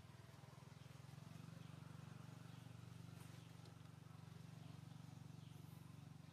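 Near silence: a faint, steady low hum of outdoor background, with no distinct event.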